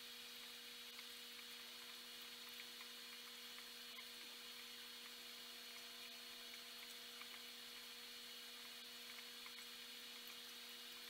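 Faint, steady hum with a light hiss from the running aquarium equipment: an air pump and filter keeping bubble streams going.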